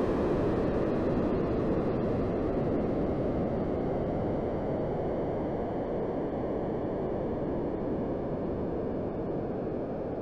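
Sonification of standing magnetospheric waves at the edge of Earth's magnetosphere, made from satellite data: a steady, low hiss with no distinct tones that slowly gets quieter.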